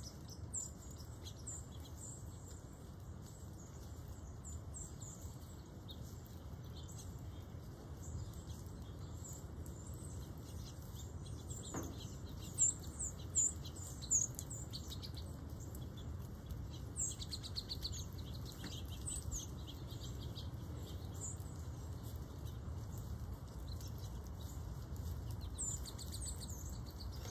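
Small songbirds chirping, many short high calls scattered throughout, over a steady low background rumble, with three brief louder sounds a little past halfway.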